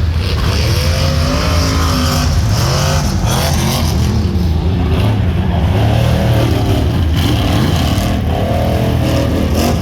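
Rock bouncer race buggy engine revving hard, its pitch rising and falling again and again.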